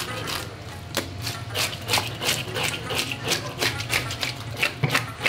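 A fish being scaled by hand: a blade rasping quick, sharp strokes against the scales on a wet wooden board, about three to four strokes a second.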